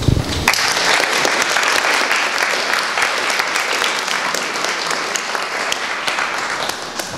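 Audience applauding: many hands clapping together. It sets in about half a second in and thins out near the end.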